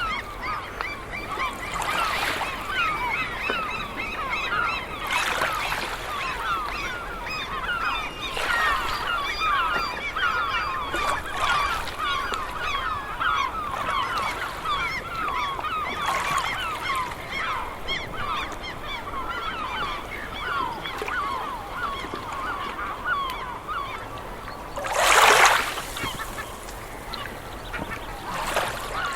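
A flock of birds, likely waterfowl, calling together in a dense, continuous chatter of short calls. Near the end comes one louder, sudden burst about a second long.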